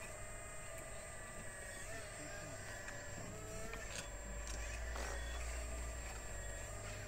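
Radio-controlled scale model crawler excavator working, a thin mechanical whine whose pitch shifts slightly as the boom and bucket move, with a low rumble swelling about four seconds in.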